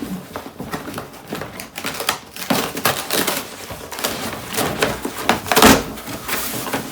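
Cardboard shipping box being opened and handled by hand: a busy run of rustling, scraping and crinkling of cardboard and packing material with many small knocks, loudest a little before the end.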